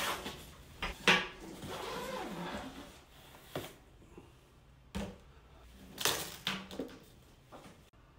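Handling noise as a nylon backpack is moved and opened on a wooden table: fabric rustling in the first few seconds, then several light knocks and clunks against the wood.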